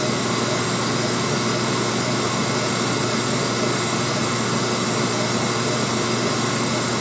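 Monarch engine lathe running steadily, its spindle turning a large flanged workpiece, with an even machine hum and whir.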